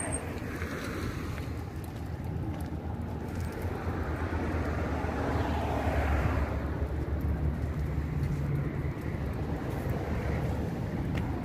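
Steady street traffic rumble, swelling as a vehicle passes about halfway through and then fading.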